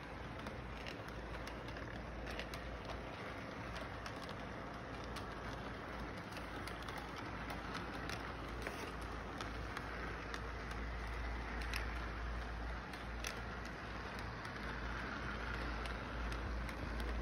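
Model electric train running around its track: a steady rumble from the motor and wheels with irregular sharp clicks as the wheels cross the rail joints, over a low background hum.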